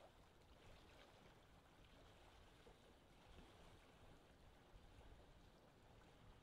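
Faint, steady water sound: gentle lapping and rippling water.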